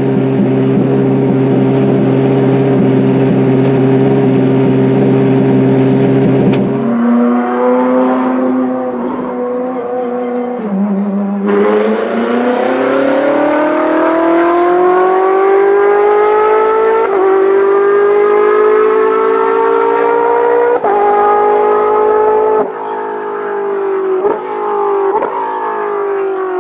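Ferrari 458 GT3's naturally aspirated V8 idling steadily, then, after a cut, the car accelerating on track: the engine note climbs slowly over about ten seconds, with quick breaks and drops from upshifts in the last several seconds.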